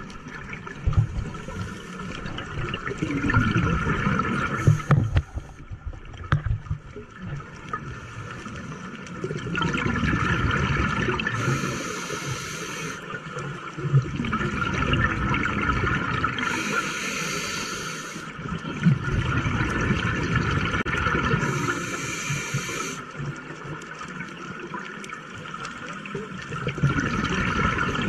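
Scuba diver breathing through a regulator underwater: a short hiss on each inhale and a bubbling rush of exhaled air on each exhale, a breath about every five seconds.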